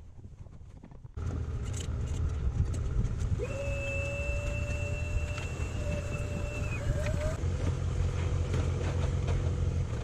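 A motor running with a steady low hum, which starts abruptly about a second in. A thin, steady whistling tone sits over it for a few seconds midway and wavers at its end.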